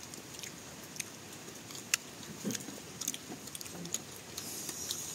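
Someone chewing young tamarind pods, heard as faint, scattered small crunches and clicks.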